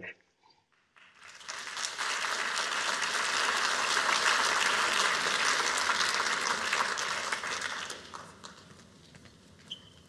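Audience applauding, starting about a second in and fading out over the last two seconds.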